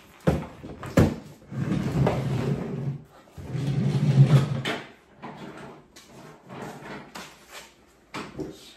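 A portable folding table with wooden legs being unfolded and set up: sharp knocks from its hinges and frame, two sustained scraping stretches of about a second each in the first half, then lighter scattered knocks.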